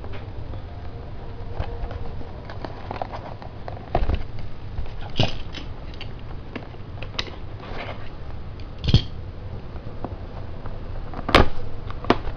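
A cardboard toy box being handled: scattered taps, scrapes and knocks as it is set down and its end flap is worked open, with the sharpest knock near the end.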